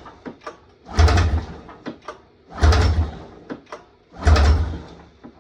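Two-stroke Polaris XC snowmobile engine being pulled over on its recoil starter, three hard pulls about a second and a half apart, each a short surge of rope and cranking engine that dies away without the engine catching. It is cranking but not yet firing while fuel is drawn up to the carburettor through the freshly corrected pump lines.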